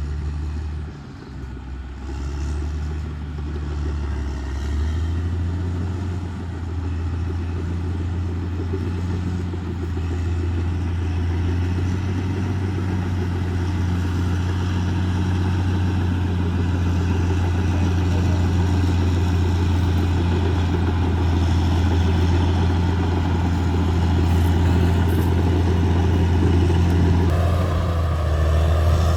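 Caterpillar D6R XL bulldozer's diesel engine running steadily as the machine travels, growing gradually louder, with a brief dip about a second in.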